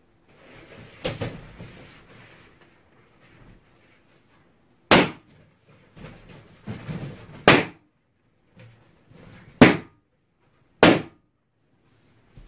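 Large latex balloons bursting: five sharp bangs, the first about a second in and weaker than the rest, the last near the end. Between them comes the softer rubbing and rustle of balloons being handled.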